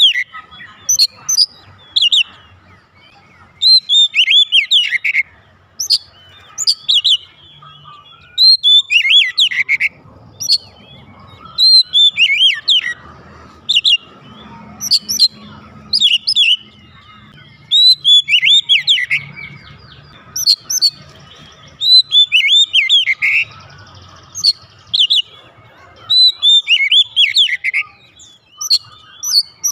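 Oriental magpie-robin (kacer) singing loudly: short bursts of rapid, sweeping whistles and chirps, repeated every second or two with brief pauses between phrases.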